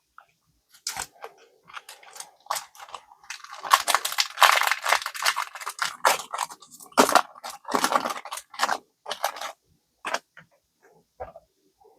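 Foil wrapper of a Pokémon card booster pack crinkling and being torn open, in a string of sharp crackles that are densest in the middle, then scattered rustles near the end.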